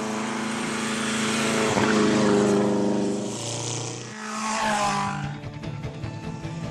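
Vintage racing car engine running hard at high revs with a steady note, which drops away about four seconds in. A second engine note then rises as it revs, followed by a fainter, uneven crackle.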